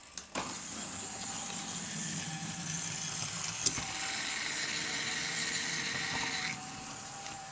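Small electric motor and gearing of a Faller Car System model truck whirring steadily, with one sharp click about three and a half seconds in. The whirr drops off suddenly about six and a half seconds in.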